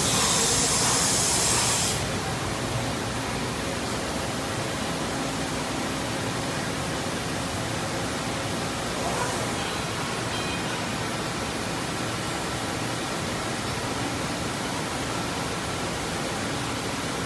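Mori Seiki ZT1500YB CNC lathe running, with a loud bright hiss of coolant spraying inside the enclosure for about the first two seconds. The hiss cuts off and leaves a steady, even machine noise.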